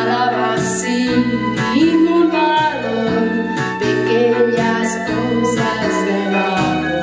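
Music: a woman singing into a microphone over instrumental backing, with long held, gliding notes and no clear words.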